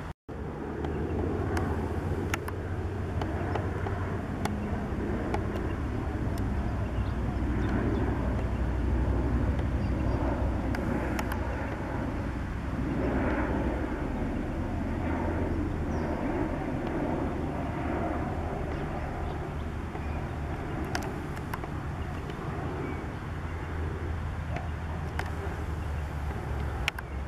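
QantasLink Bombardier Dash 8 Q400 turboprop airliner passing over on approach with its gear down, its engines and propellers giving a steady low drone that swells a little and eases off. The sound drops out for an instant just after the start.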